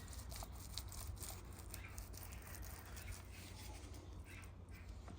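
Faint scraping and rustling of material being spread over the ground, with scattered light clicks over a low steady hum.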